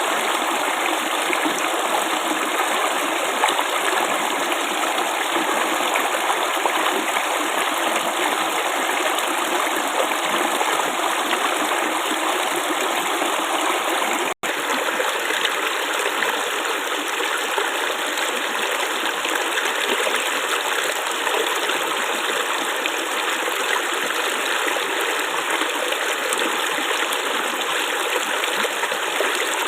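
Flowing water babbling steadily, with a momentary break in the sound about halfway through.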